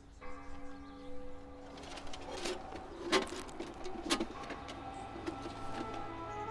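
A pigeon cooing a few times over soft sustained background music, with a few sharp clicks in the middle.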